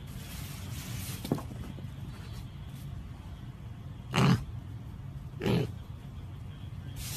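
A piglet grunts twice in short calls about a second apart. Earlier there is a single light knock.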